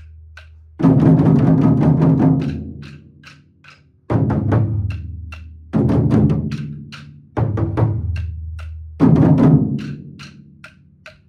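A group of taiko drums, barrel drums on stands, struck together in unison: five big booming hits over the stretch, each ringing out slowly. Light sharp clicks keep time in between.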